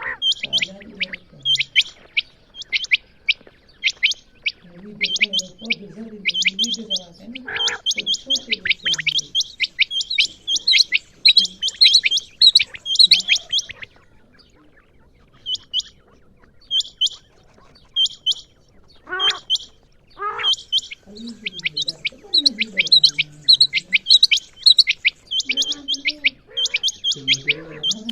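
Female quail calling: rapid runs of short, sharp high chirps, several a second, with a pause of about two seconds midway. A lower, wavering warble sounds under the chirps at times.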